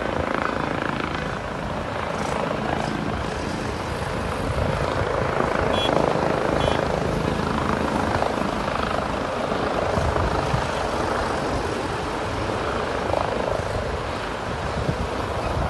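Helicopter rotors and engine running steadily as it hovers low to land, churning up dust.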